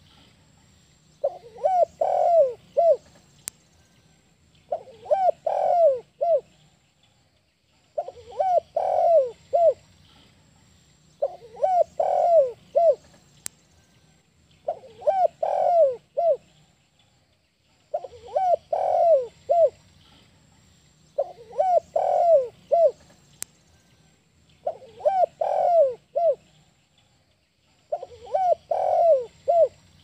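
Spotted dove cooing: a short phrase of four or five coos, repeated about every three seconds.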